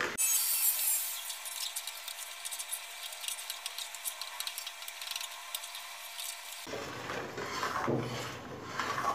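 A metal spatula scrapes and stirs thickening milk against the bottom and sides of a hard-anodised metal kadai, with a repeated rough rasping. It is the scraping done while reducing milk to khoya, to keep the thickened milk from sticking and burning.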